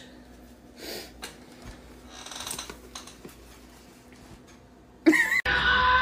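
Faint rustling and handling of a cloth garment in a small room. About five seconds in there is a short voice-like cry, and music starts right after.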